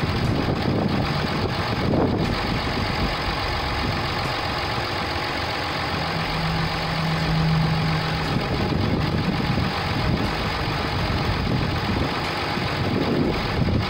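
Dodge Ram 2500's 6.7-litre Cummins inline-six turbo-diesel idling steadily. A short, steady low hum lasts about two seconds midway.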